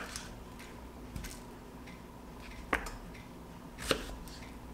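Knife cutting a large sweet onion into wedges on a cutting board: a few sharp knocks of the blade meeting the board, the clearest about two and a half and four seconds in.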